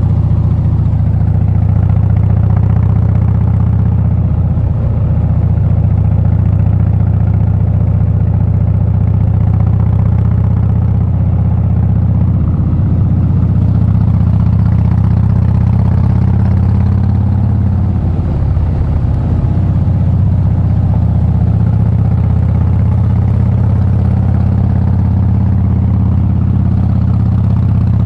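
Harley-Davidson Breakout's V-twin engine running steadily under way, heard from the rider's seat, with a brief easing of the throttle about two-thirds of the way through.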